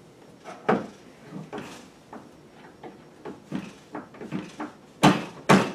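Light clicks and clacks of brass .223 Remington cartridge cases and metal press fittings being handled and set down on a reloading press, a string of short knocks with the two sharpest near the end.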